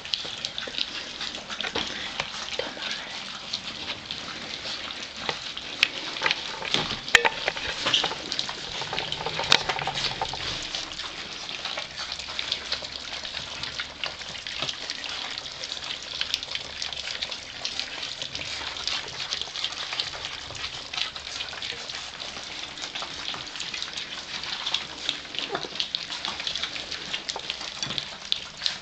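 A litter of four-week-old Gordon setter puppies eating from a shared dish, their mouths working the food in a continuous crackle of many small wet clicks and smacks, with a few louder clicks.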